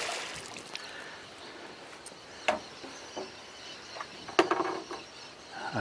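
A hooked fish splashing at the water's surface at the start, followed by a few sharp, short knocks, the loudest about two and a half and four and a half seconds in.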